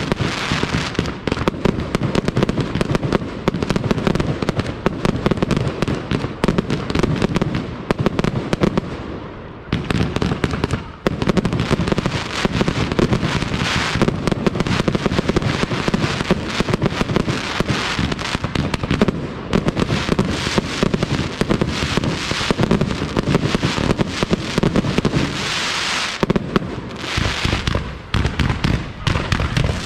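Aerial fireworks display: a dense, continuous barrage of shell bursts and crackling, many reports a second overlapping, with a brief lull about a third of the way in.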